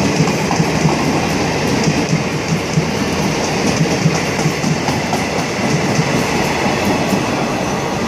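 Indian Railways express passenger coaches running past at speed: a steady rushing rumble with the clickety-clack of wheels over rail joints.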